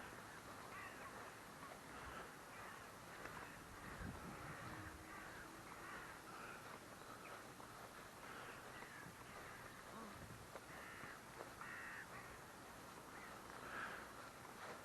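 Faint chorus of many birds calling, with short overlapping calls all the way through.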